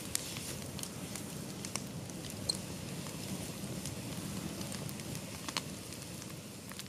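Wood campfire crackling: scattered sharp pops and ticks over a steady low rush.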